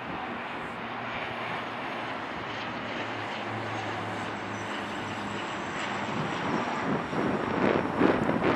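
A Bombardier Dash 8 Q400's two Pratt & Whitney PW150A turboprop engines and propellers droning steadily on final approach with a low hum, growing slowly louder as the aircraft nears. Gusts of wind buffet the microphone near the end.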